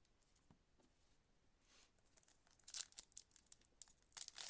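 Trading card pack wrapper being torn open and crinkled: quiet at first, then a run of sharp crackles from about two seconds in.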